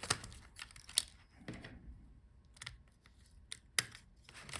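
Scattered small plastic clicks and taps from handling a laptop's palmrest and keyboard assembly while its keyboard ribbon-cable connector clip is flipped open and the cable pulled, the sharpest click about a second in and another near the end.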